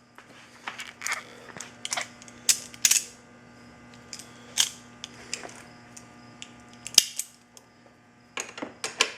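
Irregular sharp metal clicks and clinks, about a dozen, from hand tools being handled: a socket and ratchet being picked up and fitted before undoing the mirror nuts. A faint steady low hum runs underneath.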